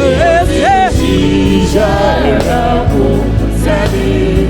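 Live gospel praise-and-worship music: singing voices over a steady band accompaniment.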